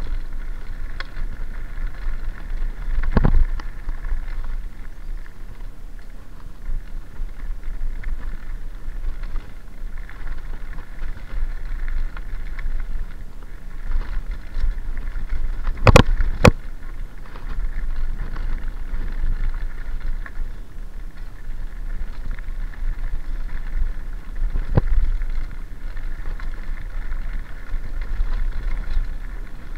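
Mountain bike rolling fast downhill over gravel, with a steady crunch and rattle of tyres and bike and a rumble of wind on the microphone. Sharp knocks from the bike hitting bumps come once about three seconds in, as a quick pair about halfway through, and once more later on.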